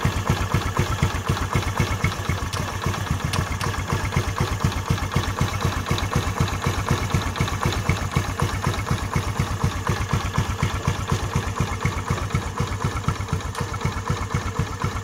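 Honda Dio scooter's single-cylinder engine idling, a steady, fast pulsing exhaust beat.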